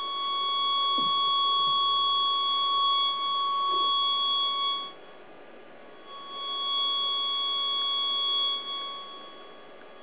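Steady electronic tone of about 1 kHz with fainter higher overtones from a microwave receiver's loudspeaker, sounding the transmitter's signal as it is picked up. It cuts out about five seconds in, comes back about a second later and dies away near nine seconds, as the wave's polarization is turned and the polarizer board passes or blocks the microwaves.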